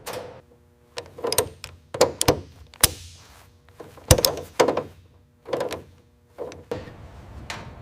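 An irregular series of about a dozen metallic clunks and knocks, each leaving a brief ring.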